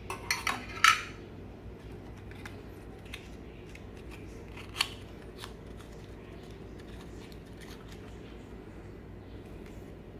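Light metallic clinks and taps of small kitchen items being handled. There is a quick cluster of them in the first second and a single sharper one about five seconds in, with small ticks between, over a steady low hum.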